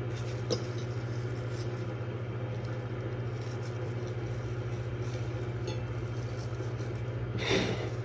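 A steady low mechanical hum, with a few faint clinks and a short rustle near the end.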